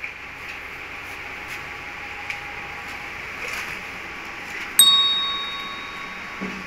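A single bright, bell-like ding about five seconds in that rings and fades over a second or so. It is the sound effect of an on-screen subscribe-button animation, heard over a steady background hiss.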